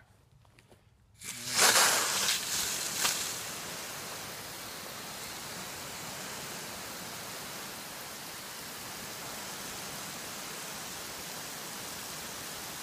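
Garden hose spray nozzle spraying water onto soil: the spray comes on about a second in, loudest for the first couple of seconds, then settles into a steady hiss of water falling on the wet seedbed.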